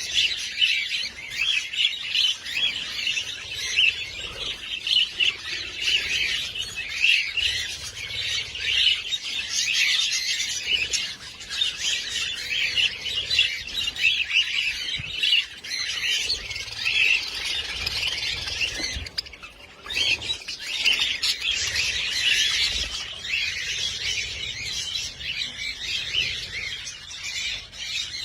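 Pet parrots chirping and chattering continuously, a dense stream of overlapping high chirps, with a brief lull about twenty seconds in.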